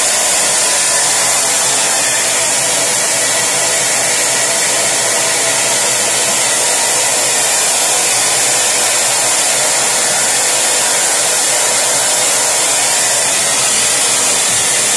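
Hair dryer running steadily at full blast, a loud, even rushing noise.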